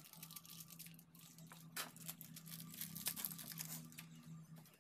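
Paper wrapping crinkling and rustling in the hands as a new bearing is unwrapped, in faint irregular crackles. A low steady hum runs underneath.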